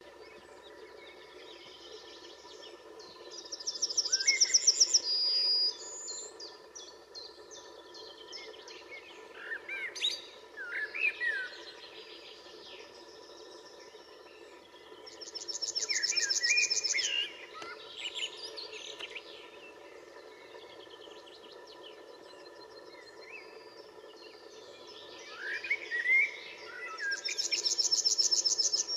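Male yellowhammer singing its song three times, each a fast run of repeated high notes, the first ending in a drawn-out note. Fainter chirps from other small birds come between the songs.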